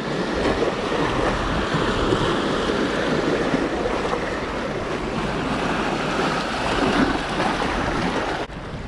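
Waves washing and splashing over seawall boulders, with wind buffeting the microphone. The sound cuts off suddenly near the end.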